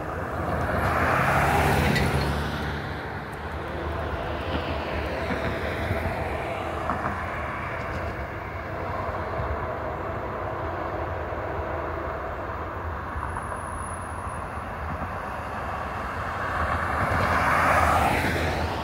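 Road vehicles driving past close by: a pickup truck swelling and fading about a second in, and an SUV doing the same near the end, over a steady low rumble.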